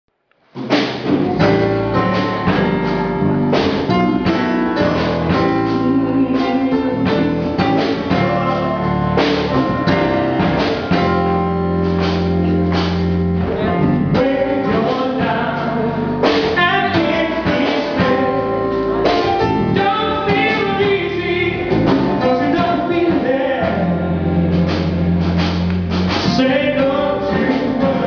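Gospel choir singing with live band accompaniment in a steady, upbeat groove with a regular beat. The music starts abruptly about half a second in.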